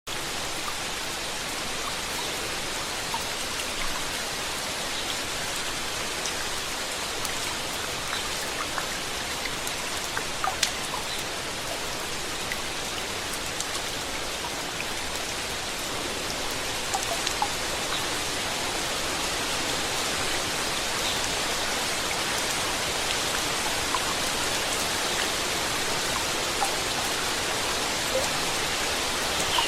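Steady rain falling, an even hiss with many small distinct drop ticks scattered through it.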